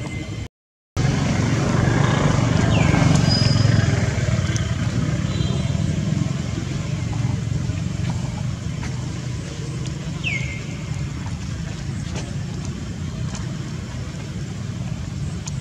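Steady low rumble of motor vehicles, swelling about two to four seconds in and then easing, with a brief dropout near the start. Two short high chirps falling in pitch come through over it, one early and one about ten seconds in.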